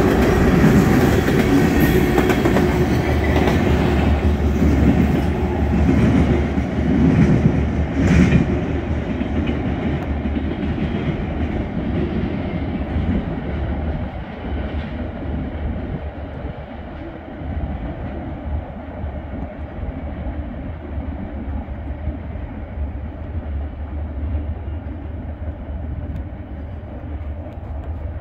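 Freight train of tank cars rolling past on steel rails, its wheels clattering over the track, with one sharp click about eight seconds in. The rumble then fades steadily as the end of the train draws away.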